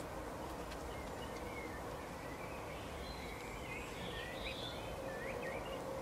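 European goldfinches twittering: a run of short, high chirps and quick up-and-down notes, thickest from about three to five seconds in, over a steady low background rumble.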